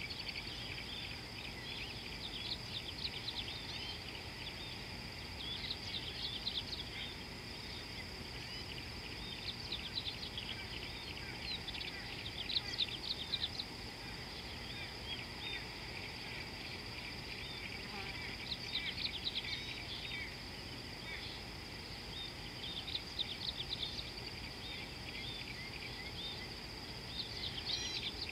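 Birds calling in repeated bursts of quick chirps every few seconds over a steady high-pitched insect trill, with a low steady background noise.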